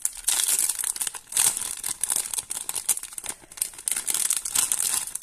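Clear plastic pouch crinkling and rustling as a hand rummages in it and pulls out paper tags and cards, a steady string of irregular crackles.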